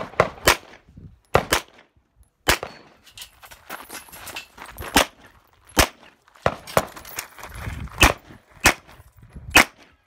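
Handgun firing a string of shots on a timed stage, about a dozen in all. Some come in quick pairs and some singly, with short gaps between.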